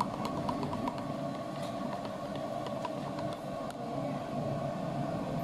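Metal spoon clicking against the side of a plastic jug while stirring cocoa paste: a quick, even run of clicks for about the first second, then only a few scattered clicks. A steady hum runs underneath.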